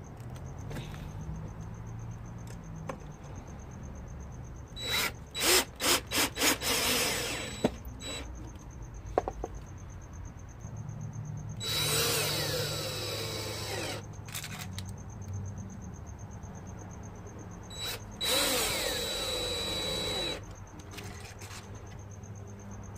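Cordless drill driving wood screws through a concealed cabinet hinge into a wooden door. A quick series of short trigger bursts comes about five seconds in, then two steady runs of about two seconds each, one in the middle and one near the end.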